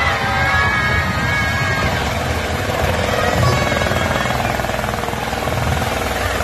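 Police helicopter landing on a grass field, its main rotor giving a steady, rapid beating chop over a deep rumble.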